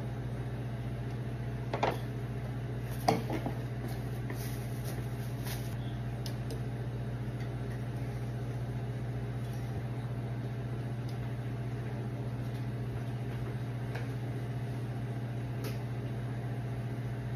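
A light bulb being twisted into a pendant lamp's socket, giving two light clinks about two and three seconds in and a few fainter ticks after, over a steady low hum.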